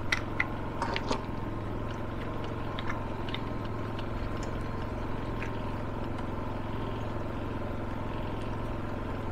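A steady mechanical hum throughout, with a few sharp clicks in the first second and fainter ticks around three seconds in, as a small solar panel is adjusted on its mounting bracket.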